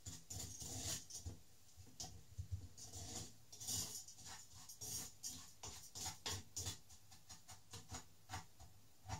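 Wooden spoon scraping and stirring a thick, dried-out cream-and-sugar caramel in a stainless steel saucepan, in quick irregular strokes.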